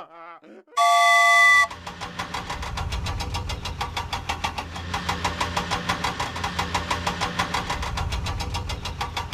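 A brief steady tone lasting under a second, then a cartoon vehicle engine sound effect running with a rapid, even chugging over a low hum.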